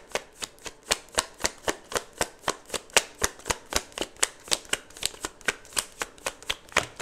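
A deck of tarot cards being shuffled by hand: a steady run of sharp card slaps, about four a second.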